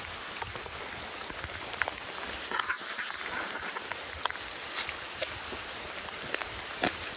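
Rain falling on wet pavement: a steady hiss with scattered sharp drip ticks.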